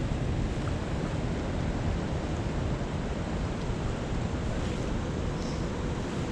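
Steady rush of flowing creek water, with wind buffeting the microphone.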